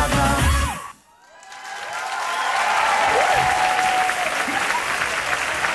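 Pop music stops abruptly about a second in; after a brief hush, studio audience applause swells up and carries on steadily.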